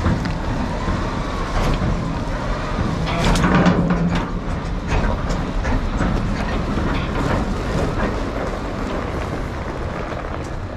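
Volvo A40G articulated dump truck's 13-litre diesel running as it rolls slowly over rubber mats on gravel. The big tyres crunch the gravel and the mats clack and crackle under the tandem wheels, loudest about three to four seconds in.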